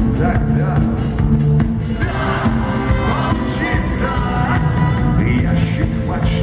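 Rock band playing live, with drums and bass, and a singer's voice coming in about two seconds in.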